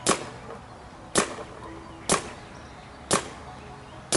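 Paintball marker firing single shots, five sharp cracks about a second apart.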